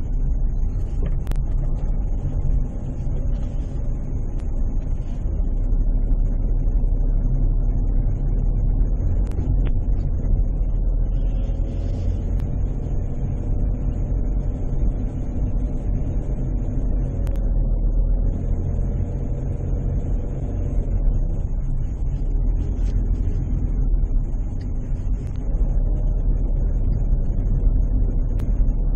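Car engine and tyre rumble heard from inside the cabin, steady and low, while driving slowly up the ramps of a multi-storey parking garage.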